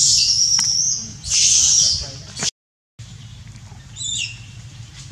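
Baby macaque crying: two long, shrill screams in the first two seconds. The sound then cuts out abruptly, followed by quieter forest background with one short falling call near the end.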